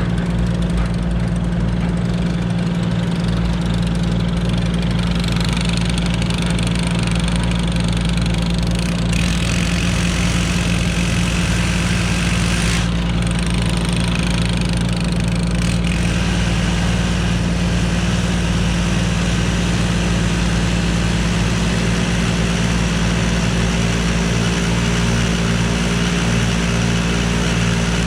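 Tractor diesel engine running at a steady speed.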